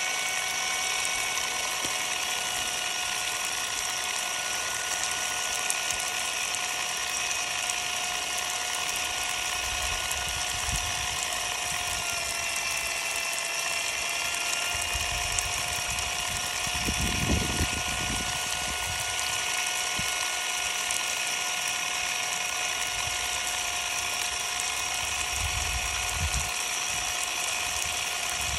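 Ryobi cordless impact driver running steadily with no load, its motor whining at a constant pitch that dips slightly about twelve seconds in, under the hiss of water spray falling on it. A few low rumbles come and go, the strongest a little past the middle.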